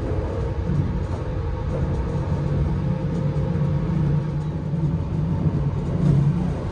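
Passenger train running, heard from inside the car: a steady rumble of wheels on rails, with a low hum that comes in about a second in and fades near the end.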